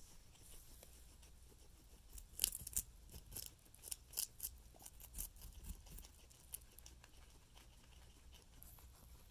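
Guinea pig biting and chewing raw carrot: a run of crisp crunching clicks, thickest from about two to six seconds in, then sparser.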